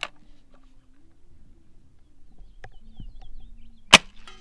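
A break-barrel spring-piston air rifle: a sharp click as the barrel locks shut, a couple of faint clicks, then about four seconds in a single sharp crack as the rifle fires a pellet.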